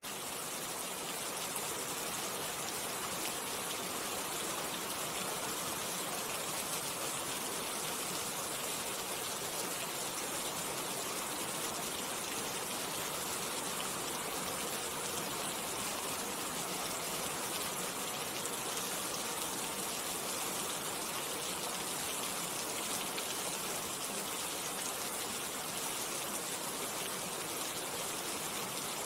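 Rain falling steadily and evenly, with no let-up or change in strength.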